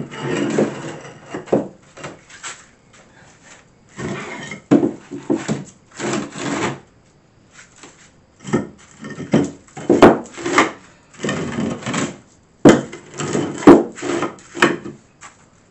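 Century-old French cement tiles being slid and scraped by hand across a gritty subfloor and butted against one another, in repeated bouts of scraping with several sharp clacks in the second half.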